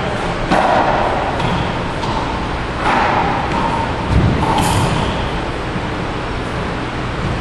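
Racquetball rally: the ball smacks off racquets and court walls several times, sharp hits about half a second, three and four seconds in, over a steady background hum.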